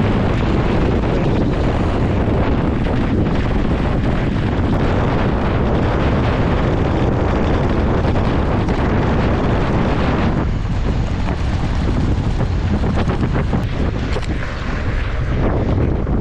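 Wind buffeting an action camera's microphone while a mountain bike is ridden at speed: a loud, steady rush with scattered clicks and knocks. It eases in the higher range for a few seconds about ten seconds in.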